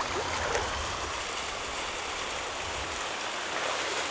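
Steady rush of a flowing creek's current, with a low rumble under it that stops about three seconds in.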